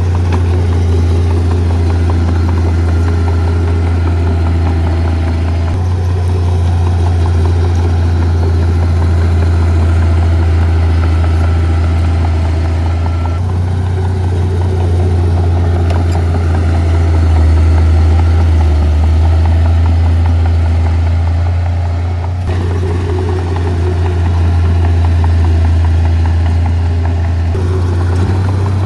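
Diesel engine of heavy earthmoving equipment running steadily and loudly, with a deep, even drone; the sound shifts abruptly about four times.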